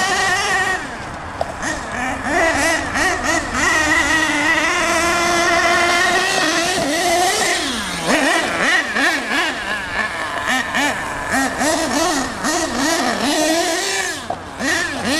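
Small two-stroke engine of an RC monster truck revving up and down in quick throttle blips, its pitch constantly rising and falling, with scattered clicks of gravel under the tyres.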